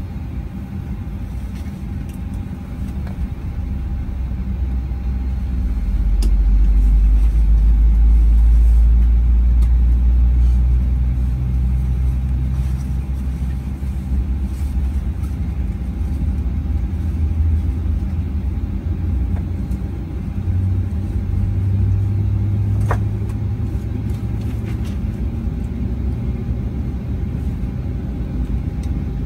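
Inside the cabin of a taxiing Boeing 737-800: a low rumble from its CFM56 engines that swells about six seconds in and eases a few seconds later. A faint steady hum runs under it, and there is a single click late on.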